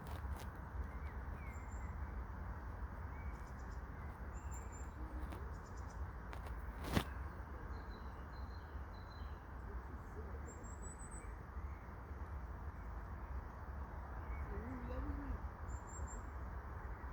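Outdoor ambience: a steady low background noise with faint, short bird chirps scattered throughout and a single sharp click about seven seconds in.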